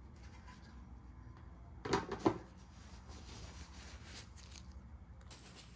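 Two short knocks about two seconds in, a quarter of a second apart: the drained Ford 4R70W transmission pan and its magnet being handled.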